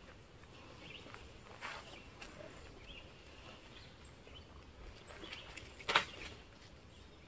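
Faint outdoor background with a few brief rustles, and one short, sharp knock about six seconds in.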